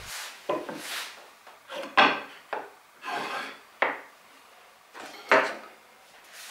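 A steel try square sliding and tapping along the edge of a wooden board as it is checked for square, and the board being handled. The sound is a series of short scraping strokes on wood, with one sharp knock about two seconds in.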